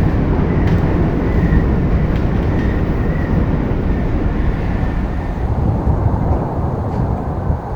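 Chicago 'L' train running: a loud, steady low rumble with a faint high whine over the first several seconds.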